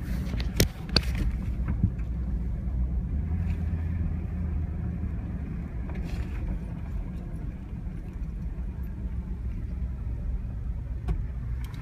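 Car engine running, heard from inside the cabin as a steady low rumble. A few sharp clicks come in the first two seconds and one more near the end.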